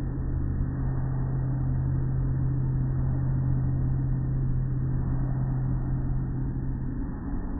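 Automatic car wash machinery running: cloth brushes and curtains turning over a car amid spraying water, over a steady low hum that stops about seven seconds in.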